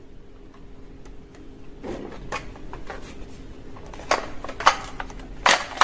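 Plastic toy guns being handled: a few light, sharp clicks and knocks, most of them in the second half, over a faint steady hum.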